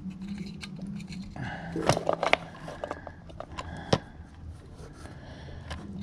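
Plastic clicking and scraping as the replacement compressor overload relay and start capacitor for a GE refrigerator (WR07X10131) are worked together by hand. A cluster of sharp snaps comes about two seconds in and a single snap near four seconds, with rubbing in between.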